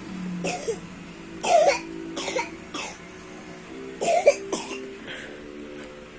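Repeated coughing in two fits of short coughs, the second fit starting about four seconds in. It is coughing brought on by hard crying.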